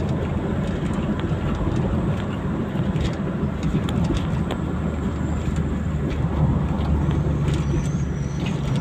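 Car driving along a paved road, heard from inside the cabin: a steady rumble of engine and tyres, with scattered light clicks.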